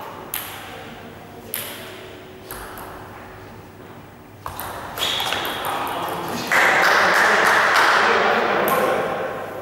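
A table tennis ball clicks off bats and the table during a rally, with single sharp ticks about a second apart. Then, from about halfway in, a louder stretch of rushing noise with some voice in it runs for several seconds.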